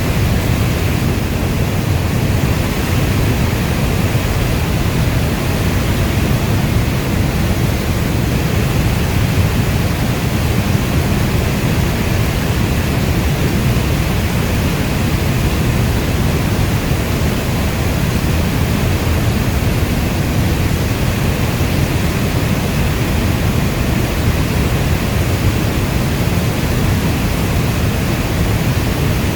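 Steady heavy rain ambience, a dense even wash of noise weighted toward the low end like brown noise, with no distinct drops, thunder or other events.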